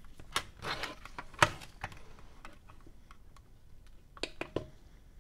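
Scattered sharp clicks and light taps from a tweezer test probe being handled on a power-supply circuit board, with one louder click about a second and a half in. Near the end come two clicks as the component tester's Start button is pressed to run a capacitor measurement.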